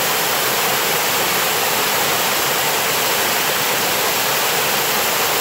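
Lake water washing over shoreline rocks: a steady, even rushing hiss.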